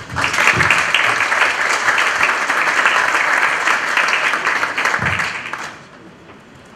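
Audience applauding, dense clapping for about six seconds that then dies away.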